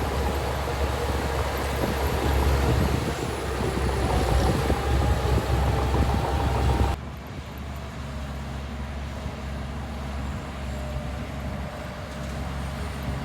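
Heavy diesel earthmoving machinery running steadily, with a low engine hum and a faint whine. The sound drops suddenly to a quieter engine sound about seven seconds in.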